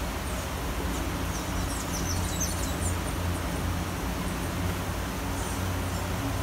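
Steady city rain ambience: an even hiss over a low traffic rumble, with a run of short high chirps about two seconds in.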